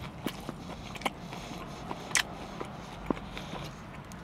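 A person chewing a bite of fried orange chicken with closed mouth, a few scattered wet clicks and smacks, the sharpest about two seconds in, over a steady low hum inside a parked car.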